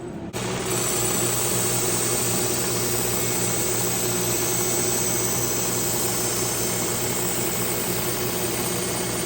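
Work Sharp Ken Onion Edition electric belt sharpener running, with a kitchen knife's steel edge grinding against the abrasive belt. The grinding starts suddenly about half a second in and holds steady, raising a burr on the edge.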